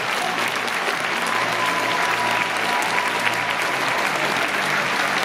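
Large arena audience applauding steadily, many hands clapping at once, with low music playing underneath.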